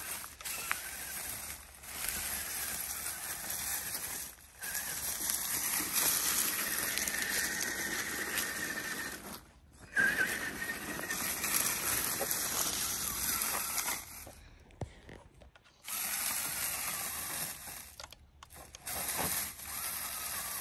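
Brushed electric motor and gear drivetrain of a Laegendary Grando 1:10 scale RC crawler whirring in low gear. It runs in stretches of a few seconds, stopping briefly between them as the throttle is let off, on a battery that is running down.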